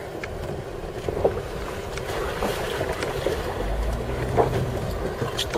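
Jeep running at low speed over a rough, bumpy dirt track: a low engine and tyre rumble with a few short knocks and rattles from the bumps, and wind on the microphone.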